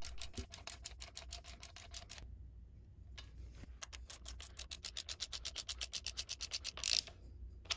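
Socket ratchet clicking in quick, even runs while snugging the cam sprocket bolts, taking up the slack before they are torqued. The clicking breaks off for about a second a little after two seconds in, then resumes.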